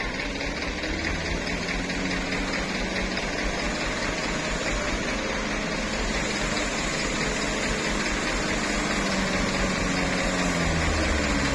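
Diesel engine of a loaded Mitsubishi Fuso Canter oil-palm truck labouring up a soft, muddy slope, with more trucks climbing behind it. The engine note wavers in pitch and grows gradually louder as the truck comes closer.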